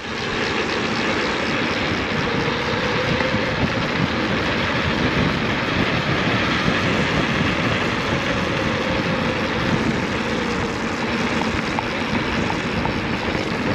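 Steady rush of wind buffeting the microphone, mixed with tyre rumble, while riding a mountain bike on a forest track.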